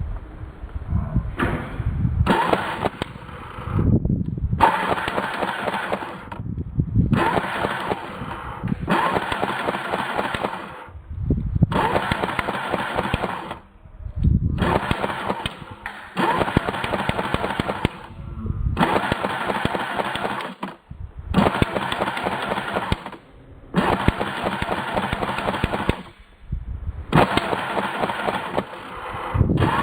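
Airsoft gun firing on full auto in about a dozen bursts of one to two seconds each, with short pauses between.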